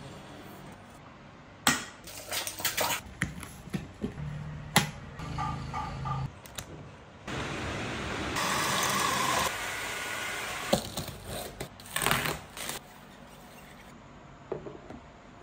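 A quick run of handling sounds from household goods: separate knocks, clicks and short clinks, with a steady hiss for about three seconds in the middle.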